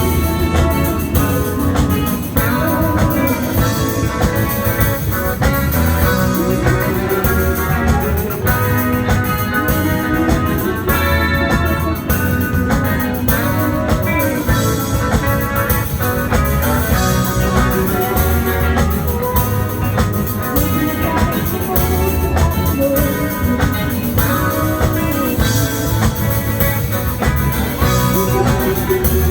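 A live band playing without a break, guitar over bass and drums.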